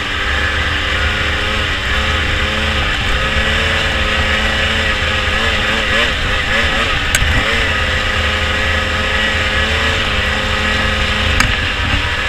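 Ski-Doo 600 RS snowmobile's two-stroke engine running at a steady speed as the sled moves, with its pitch wavering up and down a few times about halfway through.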